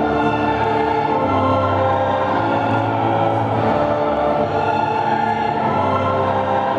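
Choir-like music: long held chords over a low drone, shifting slowly with no beat.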